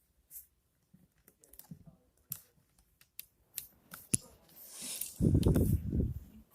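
Scattered light clicks and taps, then a louder, low rumbling rustle lasting about a second, about five seconds in: objects being handled close to the microphone.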